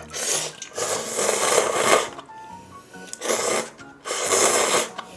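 A person slurping cup-ramen noodles with loud, hissing sucks, four in a row; the second slurp is the longest.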